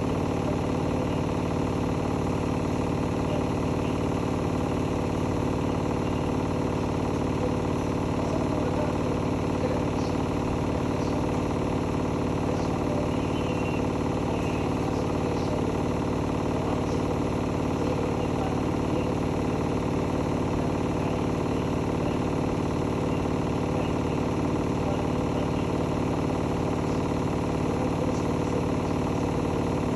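Hotpoint-Ariston Aqualtis AQXGF 149 S washing machine running at a steady speed, a constant hum made of several tones.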